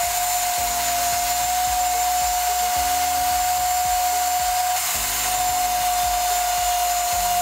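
Electric stand mixer running at a steady speed, its motor giving a constant high whine as it beats cake batter.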